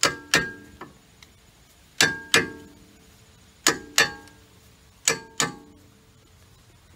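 Hammer blows on steel, loosening a 35 mm socket stuck on the axle nut. There are four pairs of sharp clanging strikes, each with a short metallic ring, the pairs about one and a half seconds apart.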